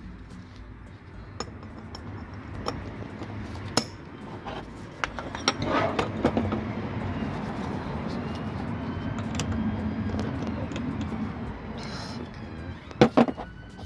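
Metal hand tools clinking and clicking as a cap-type oil filter wrench and a torque wrench are handled and fitted together on a plastic tray. A low steady rumble runs behind, louder in the middle.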